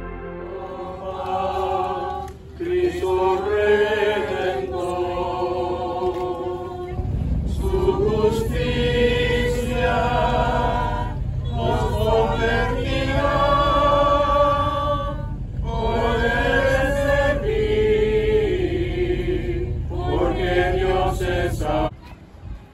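Voices singing a slow, chant-like hymn in unison, in phrases with short breaks between them. A low rumble joins about seven seconds in, and the singing cuts off near the end.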